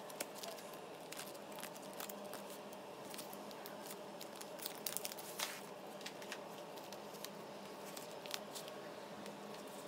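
Clear plastic sticker-album sleeves and sticker sheets being handled: soft crinkling and rustling as the pages turn and stickers are peeled, with scattered small ticks and taps. A few sharper crinkles come about halfway through and again near the end.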